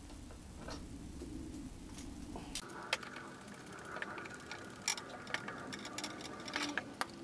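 Light clicks and taps of metal parts and hand tools being handled while the pump housing and lower leg of a small outboard are put back together. From about two and a half seconds in the clicks come thicker, with a few sharper knocks.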